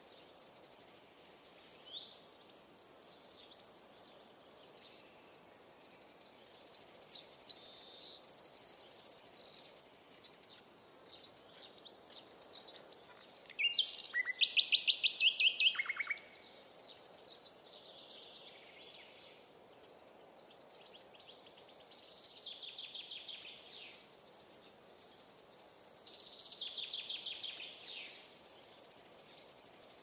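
Songbirds singing in short phrases and rapid trills, the loudest a fast trill about halfway through, over a faint steady background hiss.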